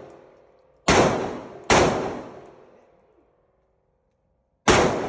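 Three gunshots at a shooting range: two about a second in, close together, then a third near the end, each with a long echoing tail that fades out.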